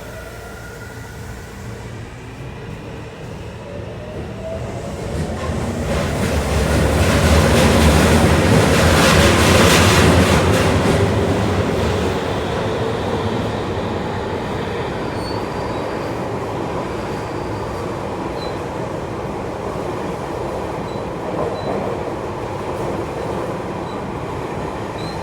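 Tokyu 3000 series electric train pulling away and accelerating, its traction motor whine rising in pitch over the first few seconds. The running noise swells to its loudest about eight to ten seconds in, then settles into steady cruising in a subway tunnel with some wheel squeal.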